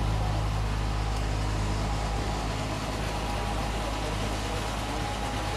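A steady low mechanical hum, like an engine or machine running without a break, under a faint murmur of people.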